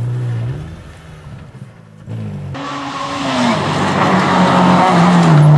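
Rally car engines at speed: a Peugeot 206 rally car's engine note drops as it comes off the throttle through a bend. About two and a half seconds in, a Peugeot 205 rally car approaches at high revs, its engine and tyre noise growing louder toward the end.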